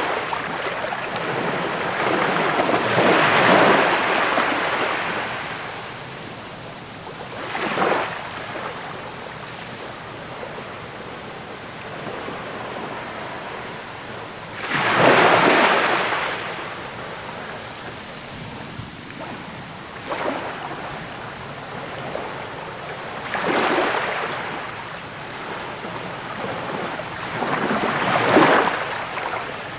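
Ocean waves breaking and washing in as hissing foam. The sound swells in surges a few seconds apart, with a steady wash between them.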